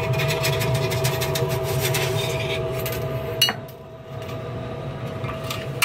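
The furnace's exhaust blower running with a steady hum and whine. Rapid metallic scraping and clicking sits over it for about the first three seconds, then the sound drops off abruptly, leaving a quieter hum, and one click comes at the end.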